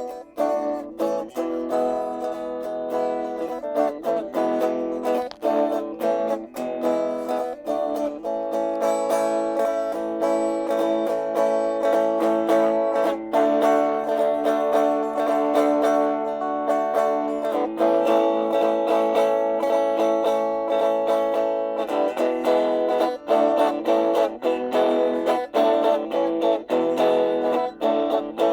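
Electric guitar played through a Marshall MS-2 one-watt micro amp: picked single notes and chords, with some notes held in the middle. The tone is thin, with almost no bass.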